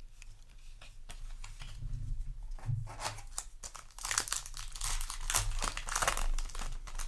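Yu-Gi-Oh! booster pack wrapper crinkling and tearing open. There are scattered crackles at first, then a dense crackling from about three seconds in.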